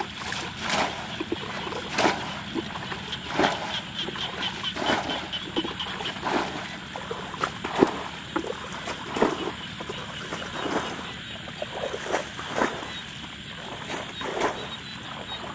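Water splashing in irregular bursts as a plastic bucket scoops and throws water out of a shallow muddy ditch. A quick run of high chirps is heard a few seconds in.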